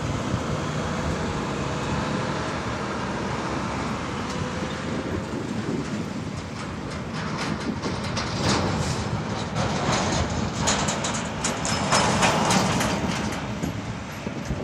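Heavy diesel fire engine driving past and pulling away, engine running steadily. Later comes a run of sharp metallic clanks and rattles, loudest about twelve seconds in.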